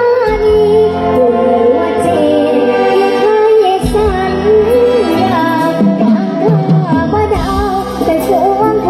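A young female singer singing a mor lam song into a microphone over loud amplified band accompaniment with a steady bass, her melody bending and ornamented.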